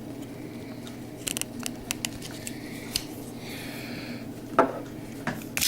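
Spring-assisted folding knife with a liner lock being opened and closed by hand: a series of sharp metallic clicks and snaps as the blade flicks out and locks and is then folded shut. The loudest snap comes past the middle, and more follow near the end.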